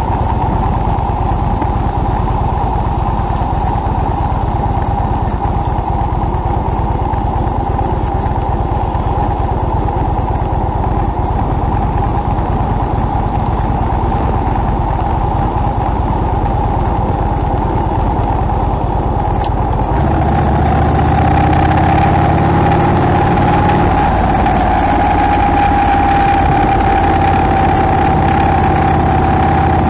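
Motorcycle running at road speed, with a steady rush of road and wind noise picked up by a camera on the fairing. About two-thirds of the way through, the engine note grows a little louder and clearer.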